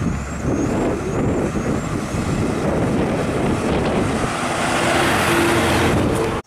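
Large vehicle's engine running close by, a loud rough rumble, with a bird chirping a few quick rising notes in the first second; it cuts off suddenly at the end.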